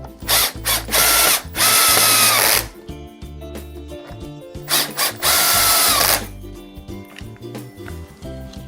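Power drill driving wood screws into the chair's wood in two spells. Each spell opens with a few short triggers and ends in a longer run, the motor whine sagging slightly as the screw seats.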